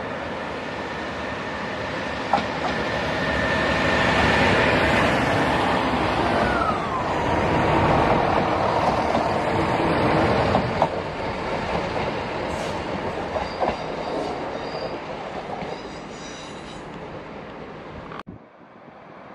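Chiltern Railways class 168 diesel multiple unit pulling away and passing close by: diesel engines running under power over the rumble of the wheels on the rails, with a few sharp clicks from the wheels. Its note falls about six to seven seconds in, and the sound fades as the train draws away, then cuts off abruptly near the end.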